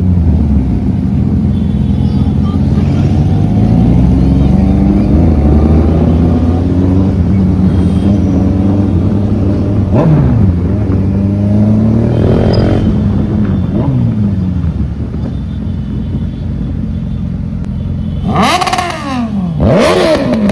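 Superbike engines running at walking pace, the riders blipping the throttle so the revs rise and fall again and again. Near the end come two sharp revs that climb high and drop back down.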